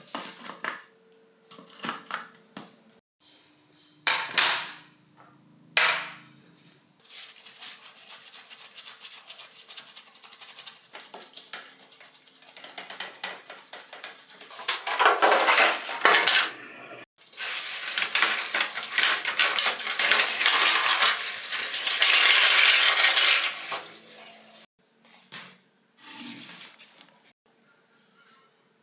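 Small metal parts clicking and clinking as they are handled, then a long stretch of steady scraping or scrubbing on metal that grows louder about halfway through, followed by a few light knocks.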